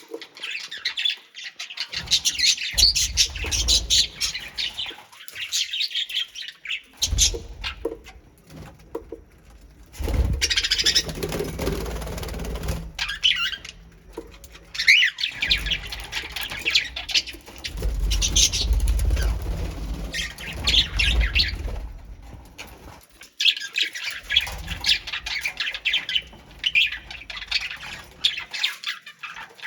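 A colony of pet birds chirping and squawking together in long stretches with short gaps between them. A low rumble comes and goes underneath.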